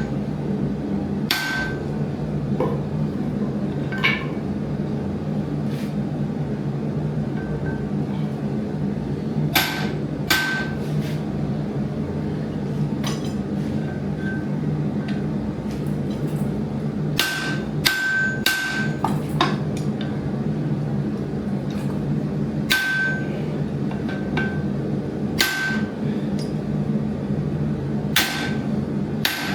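Hand hammer striking metal in irregular blows, about a dozen, mostly a few seconds apart with a quick cluster of four around the middle, each blow leaving a short high ring, as copper and steel are forged into a ladle. A steady low hum runs underneath.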